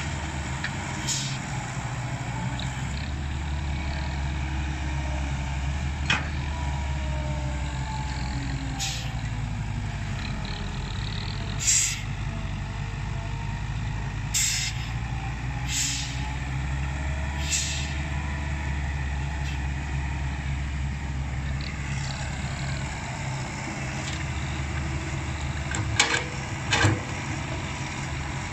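Komatsu tracked excavator's diesel engine running steadily while digging, with several short hissing bursts and a few sharp knocks near the end.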